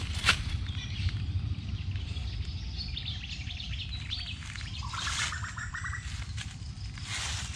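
Birds chirping, with a quick run of short repeated notes about five seconds in, over a steady low rumble.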